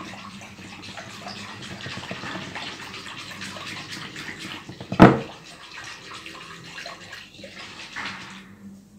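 Milk being whisked by hand in a glass bowl: liquid swishing with quick light clinks of the whisk against the glass. A single sharp knock comes about five seconds in, and the stirring stops near the end.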